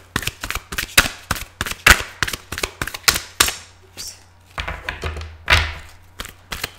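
A deck of reading cards being shuffled by hand: a quick, uneven run of soft slaps and clicks as the cards drop from one hand into the other, with a couple of longer sliding swishes past the middle.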